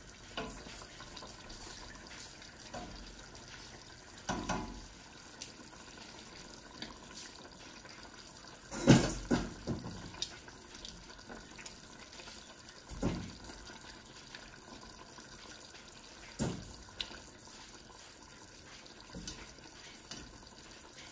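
Metal kitchen tongs knocking against a stainless steel pot, with sauce dripping and splashing as pieces of cooked chicken are lifted out. A knock comes every few seconds, the loudest about nine seconds in.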